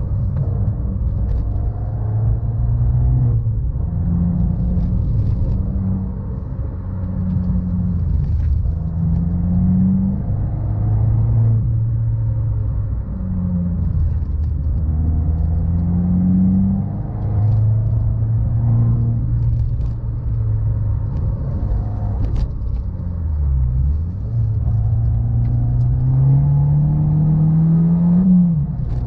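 Abarth 500's turbocharged 1.4-litre four-cylinder through a Bombardone exhaust, heard from inside the cabin while driving: the engine note climbs with the revs and falls back again and again, with a long pull near the end that drops off sharply.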